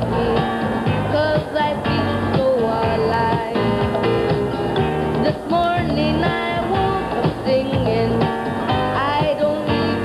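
Band music with guitar playing.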